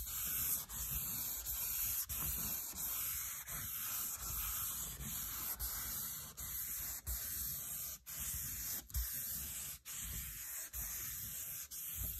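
Wet sanding with 1,000-grit paper on a flexible sanding block over the clear coat of a painted Corvette hood. The paper rubs back and forth in steady strokes, about three every two seconds, to level small imperfections flat.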